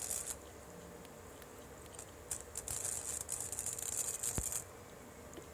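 Flux-core wire welder arc crackling and sizzling in a run of about two seconds, laying a weld bead across a stacked steel billet, with a faint steady hum underneath.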